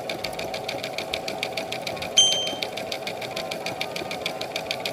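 Sewing machine running steadily, its needle stitching in a rapid, even rhythm. A brief high ping sounds about two seconds in.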